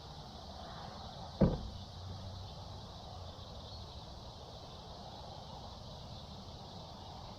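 A single sharp thump about a second and a half in, over steady faint outdoor background noise.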